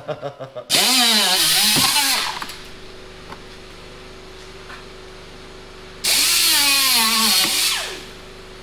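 Handheld power cutting tool run in two bursts of about two seconds each, cutting into a plastic inner fender liner. Its motor pitch dips and recovers as it bites into the plastic. A faint steady hum sits between the bursts.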